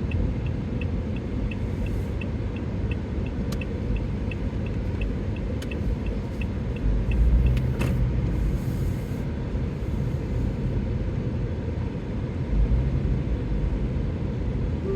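Car in motion, heard from inside the cabin: a steady low road and engine rumble with a few heavier low swells. A small regular ticking, about three ticks a second, runs until about eight seconds in and then stops, like a turn-signal indicator.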